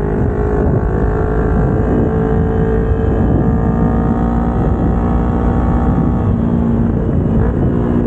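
Kawasaki Ninja 250R's parallel-twin engine running on the move, its pitch shifting with the throttle and climbing slowly near the end.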